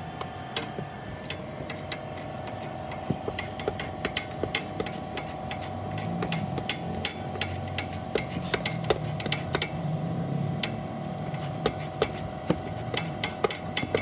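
Ratchet wrench clicking in short, irregular runs as a Torx bit socket turns a bolt on a car's rear brake caliper, with the clicks coming faster near the end. A steady hum runs underneath.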